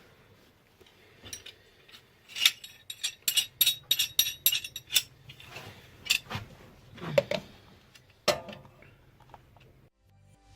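Metal tools clinking against the steering tie rod as a wrench is fitted and worked to unscrew it from the rack: a run of sharp, irregular metallic clicks, thickest in the middle, with a few single knocks later.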